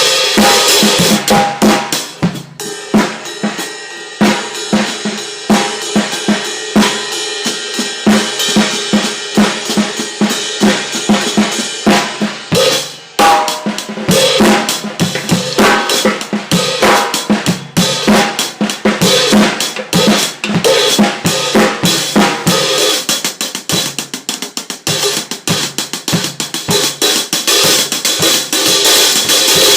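Drum kit played continuously, with kick and snare strokes under a 16-inch Saluda prototype cymbal. The cymbal wash is thickest at the start and again over the last few seconds.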